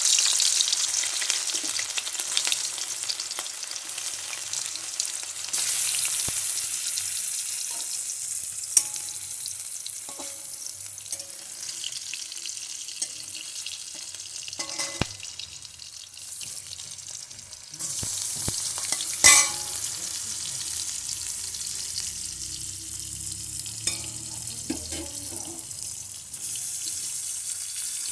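Chicken tikki patties frying in hot oil in a wok: a steady sizzle that steps up louder several times, about 6, 18 and 26 seconds in, with a few sharp clicks, the loudest about 19 seconds in.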